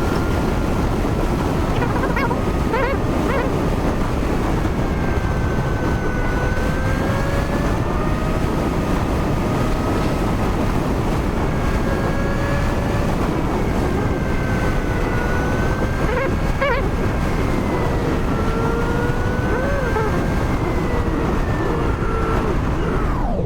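Motorcycle engine running on the move, its pitch rising and falling gently with road speed, under heavy wind rush on the microphone.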